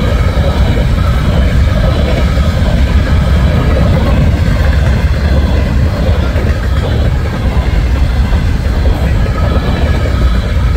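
Freight train of covered hopper cars rolling past at close range: a steady rumble of steel wheels on the rails.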